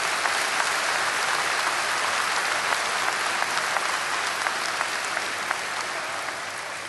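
A large seated audience applauding in a hall: dense, even clapping that slowly eases off near the end.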